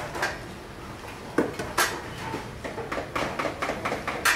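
Stainless-steel pasta-cooker baskets clattering as they are handled in the cooker, four sharp metal knocks with lighter rattles between them, over a steady low hum.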